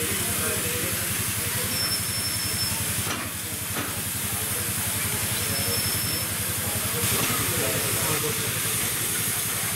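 Steady hiss of steam escaping from beneath the cab of a standing miniature steam locomotive.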